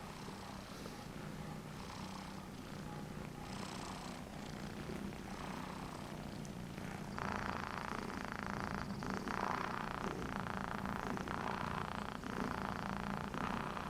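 Domestic cat purring steadily, louder and fuller from about halfway through.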